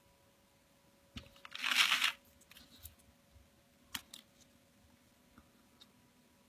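A brief crinkling rustle about a second and a half in, preceded by a sharp click and followed by a few small clicks.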